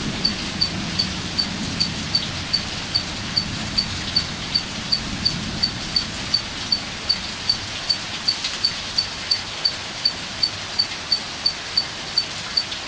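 Steady storm noise of rain, with a low thunder rumble dying away in the first second. Over it a short, high chirp repeats evenly about three times a second.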